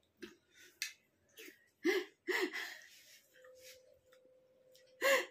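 A few short, breathy voice sounds and mouth noises from two people eating rice by hand, the loudest about two seconds in and again near the end. A faint steady hum comes in about halfway through.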